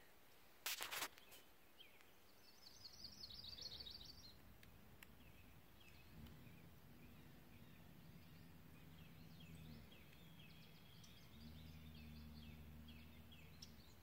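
Faint lakeside ambience with small birds singing: a quick high trill about three seconds in, then scattered chirps. A short bump about a second in, and a low steady hum that comes in halfway through.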